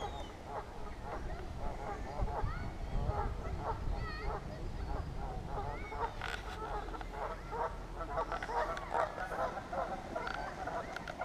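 A flock of waterfowl calling over one another without pause, many short honks overlapping, with Canada geese among the callers.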